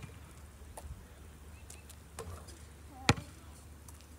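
A basketball bouncing on an asphalt driveway: one sharp smack right at the start and another about three seconds in, with a few faint taps between.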